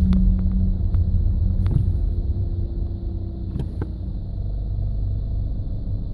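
A 2009 Audi A3 Sportback 2.0 TDI runs with a steady low rumble. A low groaning hum from the front of the car, the owner's unsolved fault, sounds at first and cuts off under a second in. The owner reports that this groan comes at low speed near full steering lock in gear and stops when the clutch is pressed. A few sharp clicks are heard during the rumble.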